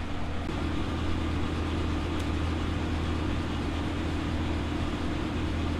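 Steady low mechanical hum that does not change throughout, with one faint tick about two seconds in.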